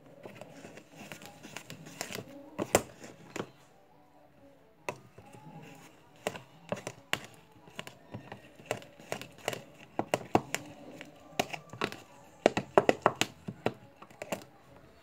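A stirrer clicking and scraping against the sides of a container while mixing a slime base of glue, water and soaked paper: irregular taps, coming in quick clusters.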